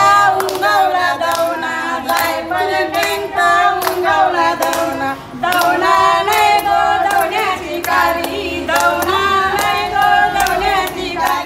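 A group of women singing a folk song together, with steady rhythmic hand claps keeping the beat throughout.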